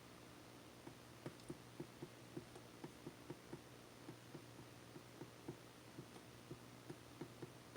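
Faint, irregular light tapping, about three to four taps a second, over a low steady hum.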